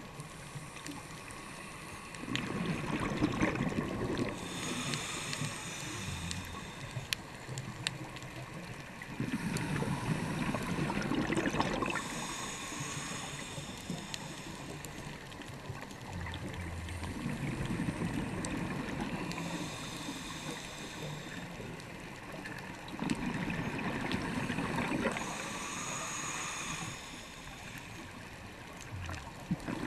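Scuba diver breathing through a regulator, heard underwater: four slow breaths, each a bubbling exhalation followed by the hiss of an inhalation, about every seven seconds.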